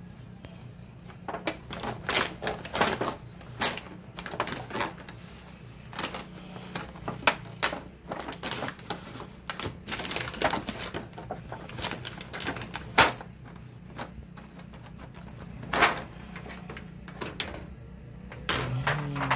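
Aluminium foil lid of a takeout pan crinkling and crackling as it is worked loose and pulled off the pan, in irregular crackles and snaps.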